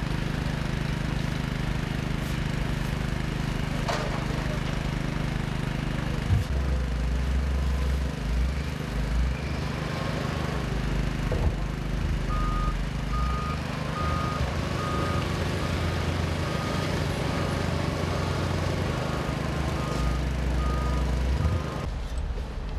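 Diesel engine of heavy machinery running steadily with a low hum, with a reversing alarm beeping at an even pace, a little faster than once a second, from about halfway in until near the end.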